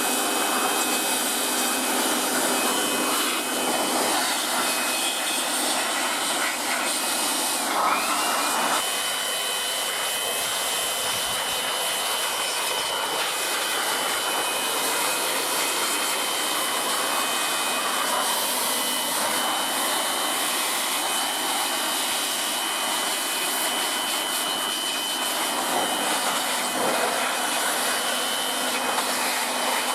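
Electric pressure washer running steadily with its spray hissing and a faint high motor whine. About eight seconds in, the whine briefly dips and recovers.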